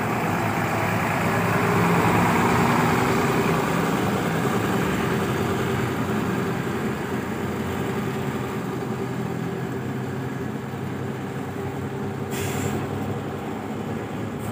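Heavy truck's diesel engine running, a little louder about two seconds in, with a brief air hiss near the end.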